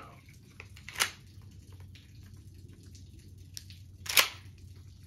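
Two mechanical clicks from a .410 shotgun being handled as it is readied to fire: a sharp click about a second in, and a louder, slightly longer clack a little after four seconds.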